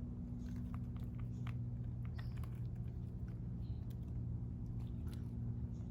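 A person chewing and biting into fresh fruit, with scattered small wet clicks, over a steady low hum.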